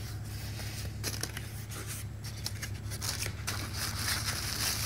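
Packaging being handled: cardboard box flaps, foam inserts and a plastic bag rustling, crinkling and scraping in uneven bursts as a boxed car stereo is pulled from its box, over a steady low hum.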